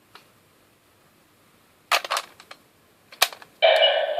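Plastic clicks from a Kyoryuger Gabutyra de Carnival toy gun as its Zyudenchi and trigger mechanism are worked: a few single snaps and a short cluster of clicks. Near the end, the toy's electronic sound effect starts loud from its small built-in speaker.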